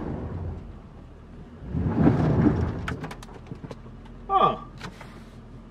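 Truck tyres splashing through soft mud, a low rush about two seconds in, followed by clumps of mud clicking and pattering against the truck and its open window. A short grunt comes near the end.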